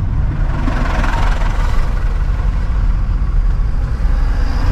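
A car driving over a broken, damaged road surface: a steady low engine and road rumble, with tyre noise that swells for a second or two early in the stretch.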